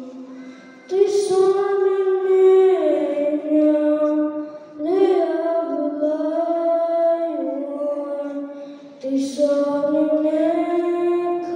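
A boy singing a solo into a microphone, holding long notes in phrases that begin about 1, 5 and 9 seconds in, with short breaths between them.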